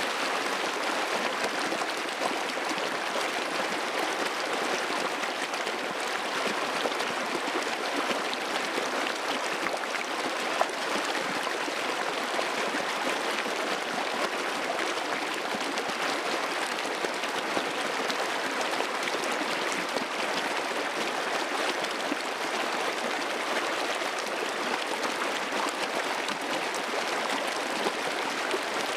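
Running water babbling steadily, like a stream flowing over rocks.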